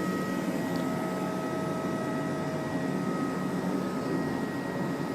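iClebo Omega robot vacuum running, a steady whir of its suction motor and brushes with a few thin, steady whining tones over it.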